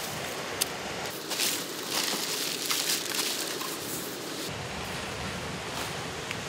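Rustling and crinkling of paper and bubble-wrap packaging being handled as a small box is unpacked, with a few sharp clicks. About four and a half seconds in, a low rumble of wind on the microphone sets in.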